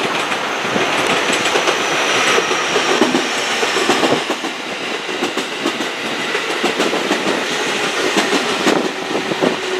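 Electric Tokaido Line passenger train running along the track beside the platform, its wheels clicking rhythmically over rail joints and points, with a faint high whine that falls slightly in pitch.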